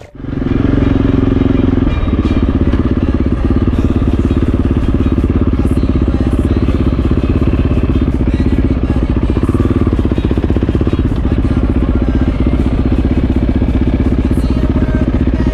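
KTM enduro motorcycle engine running steadily while the bike is ridden along the road, heard from on board the bike.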